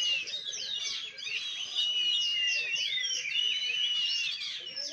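Oriental magpie-robin (kacer) singing a fast, unbroken, varied song of high whistles, quick slides and chirps, with one longer held whistle about halfway through.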